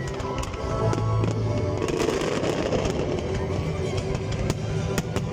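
Fireworks going off in many quick, irregular bangs and crackles, with music playing alongside.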